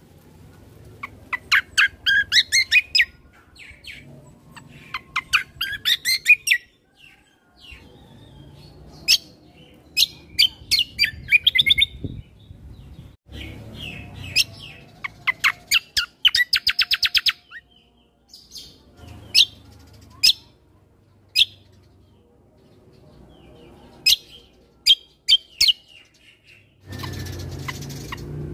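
Kecial kombo (cucak kombo) songbird singing in the wild: repeated phrases of rapid, high chirping notes, each lasting a second or two, with short pauses between, over a faint low background rumble.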